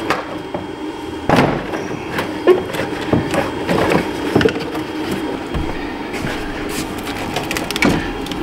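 Hands moving a plastic engine air intake duct and wiring harness under a car's hood: scattered plastic clicks, knocks and rustling.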